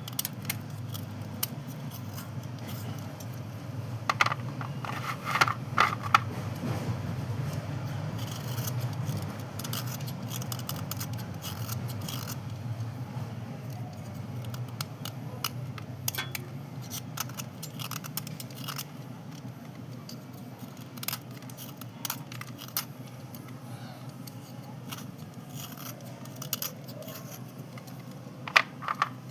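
White slate pencils and slate pieces clicking and scraping against each other as they are handled and dry-cleaned, with scattered sharp clicks that bunch together about four to six seconds in and again near the end, over a steady low hum.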